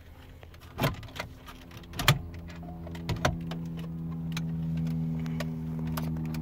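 Plastic retaining clips of a 2015 Toyota Camry's radio and climate-control bezel snapping loose as the unit is pulled forward out of the dash: a few sharp clicks, the loudest about two seconds in, among smaller ticks and creaks. From about two seconds in a steady low hum runs underneath.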